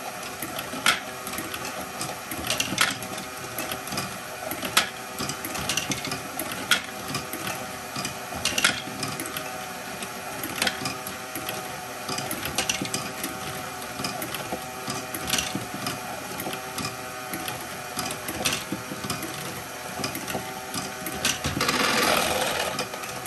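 A Lego Technic motor-driven ball module runs with a steady whir of plastic gears, with sharp clicks about every two seconds. Near the end comes a louder rattle of plastic balls moving as a batch.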